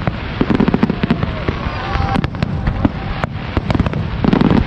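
Fireworks display going off: a dense run of sharp cracks and bangs over a continuous low rumble, with thicker crackling bursts about half a second in and again near the end.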